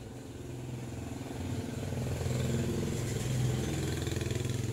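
A motor vehicle engine running steadily. It grows louder over the first two seconds, then holds.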